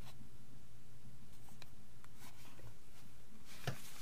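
Light handling noise: a few faint clicks and rustles as the plastic battery packs and their cardboard box are moved, with a louder rustle near the end. A steady low hum runs underneath.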